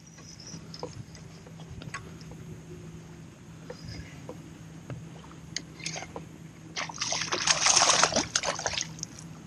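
A hooked speckled trout splashing and thrashing at the water's surface for about two seconds near the end, the loudest sound here. Before it there is only light water lapping with faint scattered ticks.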